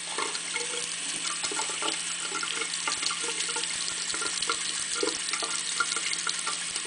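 Thin stream of tap water running steadily into a bathroom sink, with small irregular splashes as a budgerigar bathes and flaps its wings in the shallow water around the drain.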